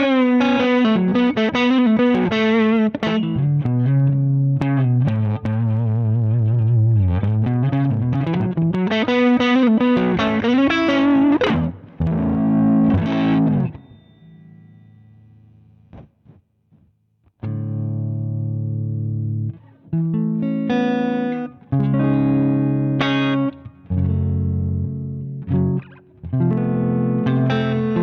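Electric guitar played through the Zander Circuitry Surplus overdrive pedal, a dual-channel, mid-focused drive. It plays single-note lead lines with bends and vibrato, then a few chords. After a pause of about three seconds come short, crunchy chord stabs.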